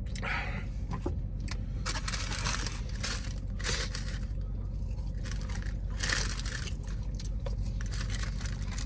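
Paper food wrapping rustling and crinkling in irregular bursts as fast food is handled, over a steady low hum.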